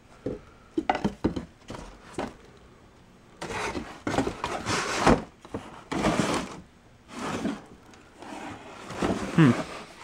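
Rummaging through a cardboard box: a few sharp knocks as a wooden tray is handled, then scraping and rustling as old hardcover books are shifted about.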